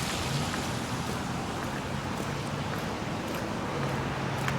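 Traffic on a wet, slushy road: a steady hiss of tyres, with a vehicle's engine hum growing louder near the end.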